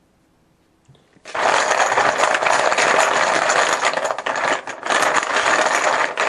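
A handful of chips rattling as they are shaken together in a container, a dense clatter of many small clicks that starts about a second in and lasts about five seconds.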